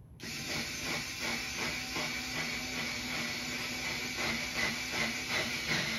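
Cordless drill-driver running steadily under load, driving a screw through plastic J-channel into the wall. It switches on just after the start and keeps going.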